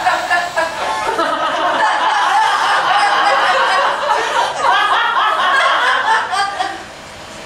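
Audience laughing and chuckling, many voices at once, dying down about seven seconds in.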